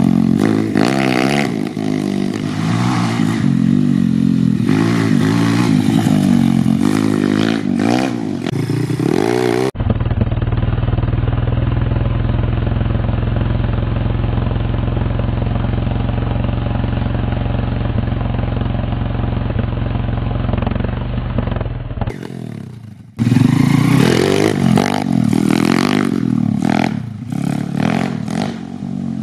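YCF150 pit bike's four-stroke single-cylinder engine, fitted with a Nibbi 24mm carburetor, revving up and down as it is ridden hard. In a stretch in the middle, it is held at steady high revs through a rear-tyre burnout.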